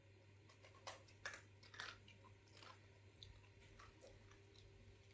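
A cat crunching food from a bowl: a few faint, sharp crunches between about one and three seconds in, then softer ones.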